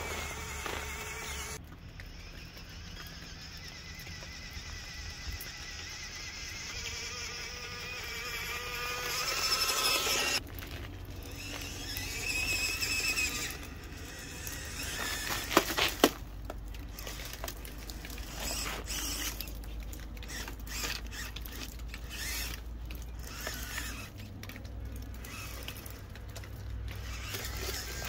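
1:18-scale FMS Toyota FJ Cruiser RC crawler driving on ice: its small electric motor and gears whine, climbing gradually in pitch for several seconds. Later come many short crackles and crunches of its tyres on icy snow.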